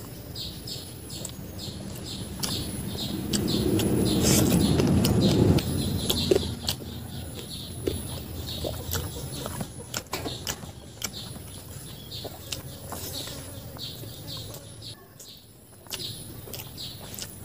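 Close-miked chewing and wet mouth smacks of someone eating fried rice and chicken curry by hand, with many small clicks. The chewing is loudest and densest about three to five seconds in.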